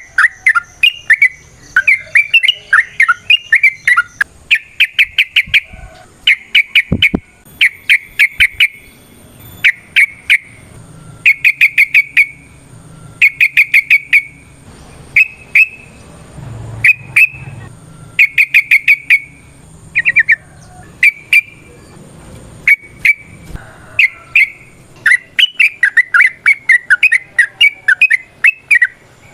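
Yellow-vented bulbul singing: loud bursts of rapid, chattering notes, each burst a quick string lasting about half a second to a second, repeated one after another with short gaps. A faint steady high whine runs under the song from about a quarter of the way in.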